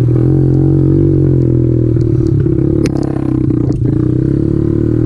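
Kawasaki KLX110 pit bike's single-cylinder four-stroke engine running steadily under way on a dirt trail. About three seconds in there is a single sharp knock and the engine note dips briefly.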